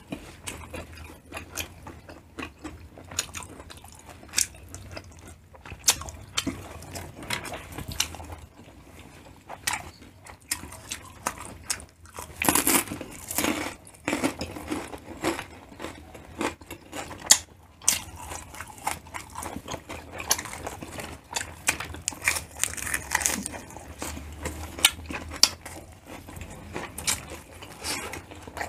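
Close-miked chewing and biting of grilled pork intestine (tumbong) off bamboo skewers: irregular wet mouth smacks and clicks, with a louder run of bites about twelve seconds in.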